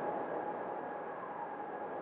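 Winter wind blowing steadily, a rushing noise with a faint high whistle held over it.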